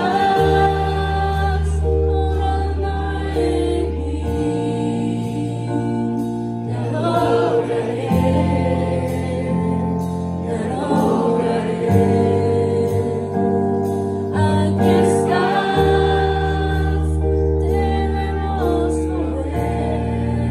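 Live worship music: sustained keyboard chords from a Yamaha S90 XS with electric guitar, the bass note shifting every few seconds, while a woman's voice sings short drawn-out phrases over it.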